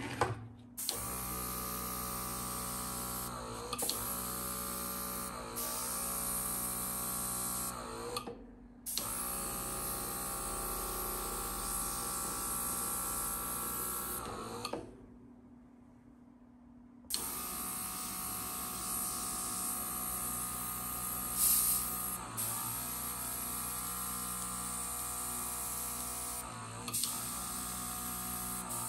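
Small battery-powered airbrush compressor of the RIBO/I-Beautee TM80S kit running with a steady motor hum, air hissing out through the airbrush as it sprays. It cuts out twice, briefly about a third of the way in and for about two seconds near the middle, then starts again.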